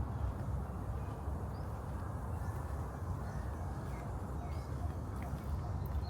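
Outdoor park ambience: a steady low rumble with a few faint, scattered bird chirps.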